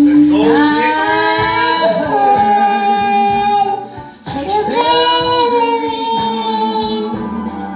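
A small child singing long held notes along with a song, in two phrases with a brief break about four seconds in.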